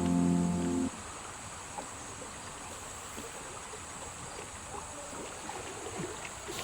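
Guitar music that cuts off about a second in, then a steady hiss of rain and river water with a few faint knocks.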